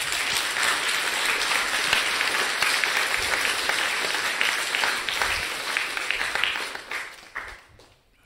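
Audience applauding: dense clapping that thins out and dies away near the end.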